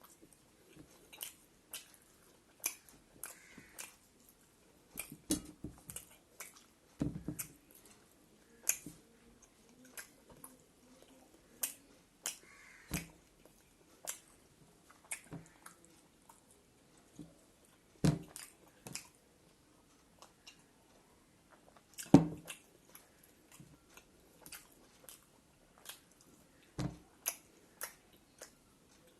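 Close-up chewing and mouth sounds of a person eating rice with buffalo meat and pickle, broken by scattered sharp clicks and taps, the loudest about 18 and 22 seconds in.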